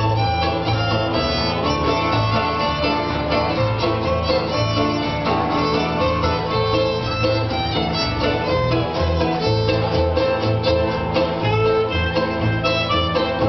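Acoustic jazz band playing an instrumental tune live, with a steady pulse of low bass notes under the melody.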